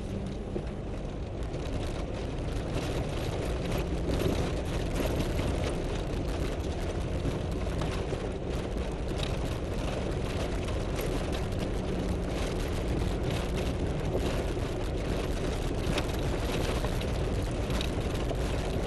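Four-wheel-drive vehicle driving slowly over a rough, rocky dirt track, heard from inside the cab: a steady low engine hum with frequent rattles and knocks from the bumpy ride.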